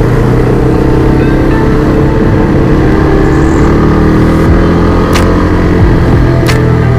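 Motorcycle engine running steadily under way in traffic, with road noise, and a few sharp clicks in the second half.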